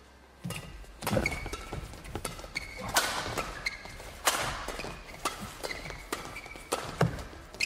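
Badminton rally: rackets striking the shuttlecock with sharp hits every second or two, starting about half a second in, with shoes squeaking on the court between shots.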